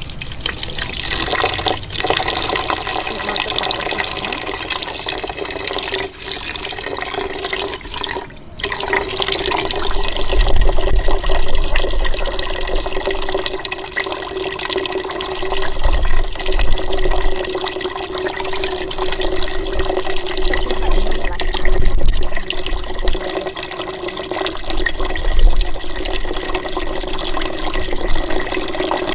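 Water from a tap running in a thin, steady stream into a metal pot of rice, filling it. The flow briefly drops out about two, six and eight and a half seconds in.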